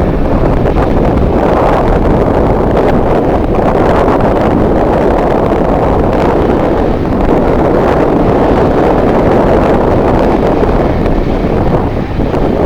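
Strong wind buffeting the microphone: a loud, steady rush and rumble that swells and eases slightly.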